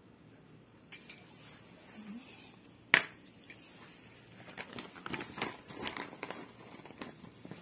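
A sharp click about three seconds in, then plastic packaging rustling and crinkling in quick irregular crackles as it is handled.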